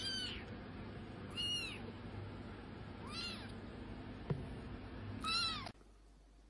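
Young kitten meowing four times, high, thin mews that rise and fall, about a second and a half apart, with a light tap between the third and fourth.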